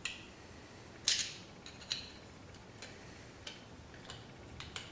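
A string of small sharp clicks and ticks, the loudest about a second in, from a flathead screwdriver working the retaining clip on the socket end of a new hatch-glass lift support strut, easing the clip out.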